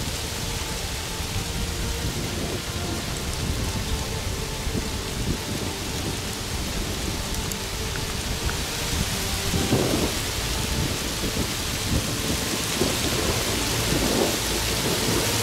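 Steady outdoor weather noise on the camera microphone: a fluttering low rumble under an even hiss, growing slightly louder toward the end.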